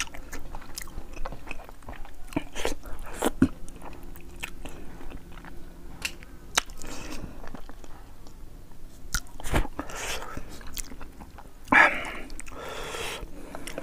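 Close-miked chewing and biting as a man eats boiled fish head and rice, with many short wet mouth clicks and smacks. There is a louder smack near the end.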